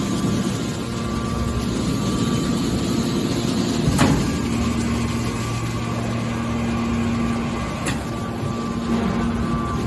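Hydraulic metal baler running with a steady machine hum from its motor and pump, with a sharp knock about four seconds in and a lighter one near eight seconds.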